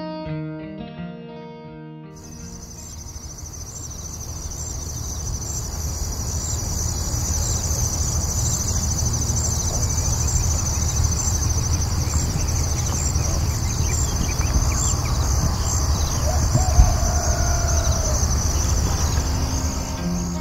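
Night ambience: crickets chirping in a steady high chorus over a low rumbling background that slowly grows louder, with one short knock about seventeen seconds in. Guitar music ends in the first two seconds.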